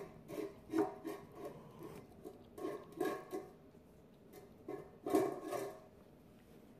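A husky mouthing and chewing a piece of raw chicken, with wet crunching and gnawing in irregular bursts that fade out near the end.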